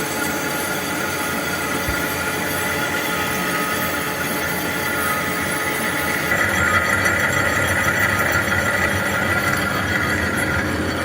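Metal lathe running with the cutting tool squealing against the workpiece during convex turning. The high squeal grows stronger about six seconds in.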